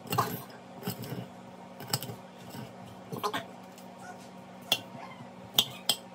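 Kitchen knife cutting a red bell pepper on a plate, the blade clicking sharply against the plate a handful of times at uneven intervals.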